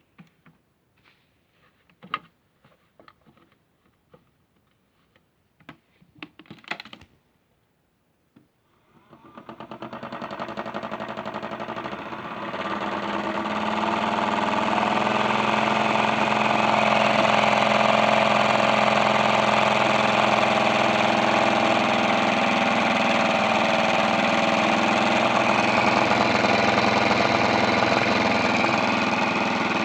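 A few scattered clicks and knocks, then, about nine seconds in, the small motor of a modified toy washing machine starts and spins up over a few seconds. It then runs steady and loud in an unbalanced spin.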